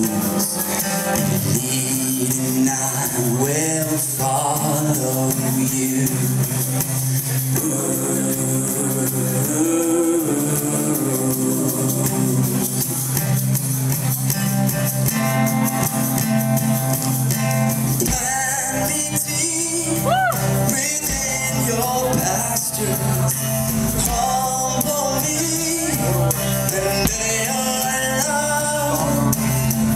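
Live band playing a song with singing, acoustic guitar and drum kit.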